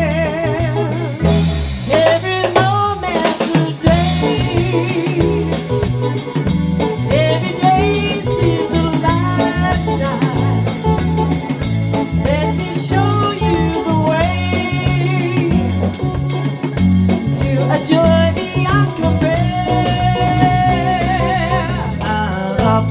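Live pop band playing: electric bass and drum kit keeping a steady beat under electric guitar and keyboard, with a wavering melody line on top.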